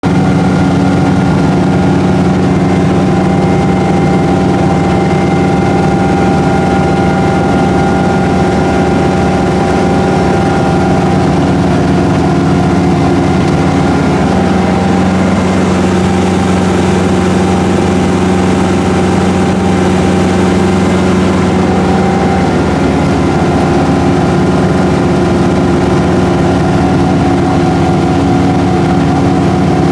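MerCruiser 470 3.7-litre four-cylinder petrol sterndrive engine running steadily, its tone shifting slightly for a few seconds in the middle.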